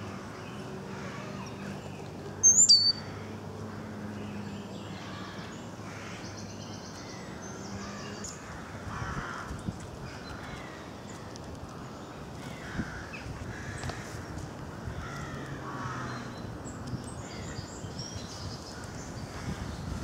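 Wild birds calling in woodland, with one loud, high chirp from a small bird close to the microphone about two and a half seconds in, and harsher calls further off around the middle and later.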